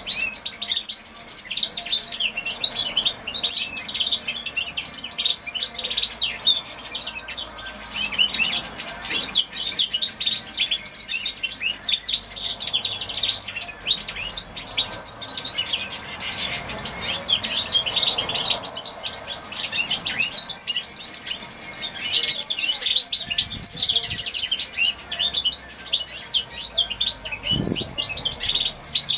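Young hybrid finch sired by a grey singer (white-rumped seedeater) singing a long run of fast, high twittering song, broken by a couple of short pauses.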